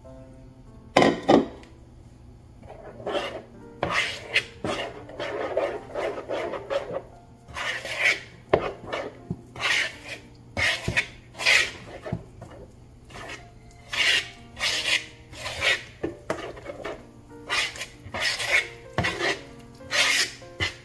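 A utensil stirring thick cake batter as flour is worked in, scraping and rubbing against a mixing bowl in irregular strokes.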